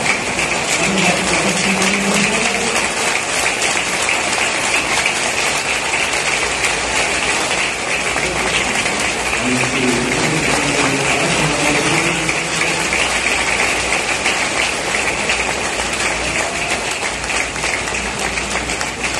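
Large stadium crowd applauding steadily, with faint voices now and then over the clapping.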